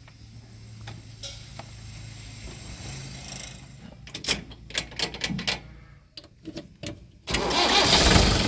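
Heavy diesel engine running low and steady, then a run of sharp clicks and knocks, and a much louder engine sound that comes in abruptly about seven seconds in.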